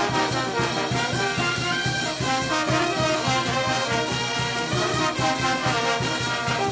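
Andean brass band (banda orquesta) playing a tune: trumpets, saxophones, baritone horns and sousaphones over a steady beat of bass drum, snare drum and clashed cymbals.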